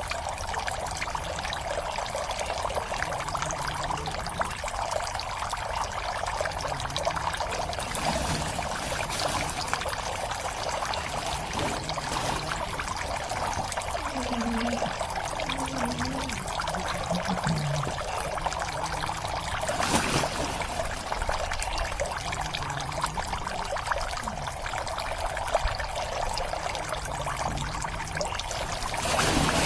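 Water steadily pouring and trickling into a pond, with two brief louder surges: one about twenty seconds in and one near the end.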